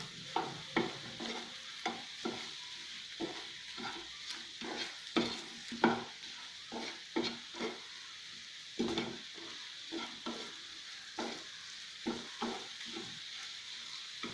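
Chicken pieces being stirred in a pan: irregular scrapes and knocks of the utensil against the pan over a steady sizzle as the chicken fries and the water it released cooks off.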